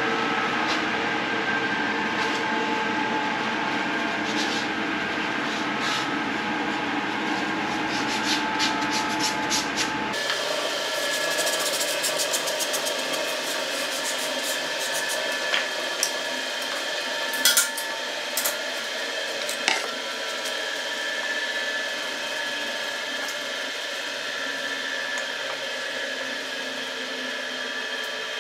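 A steady mechanical hum, like a shop machine running, with scattered light clicks and knocks as wooden core-box pieces are handled and fitted together on a bench; the hum's tone changes abruptly about ten seconds in.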